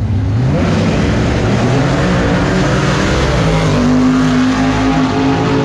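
Classic American drag cars launching down the strip at full throttle. Their engines rise in pitch through the first couple of seconds, then hold a steady high note as the cars run away.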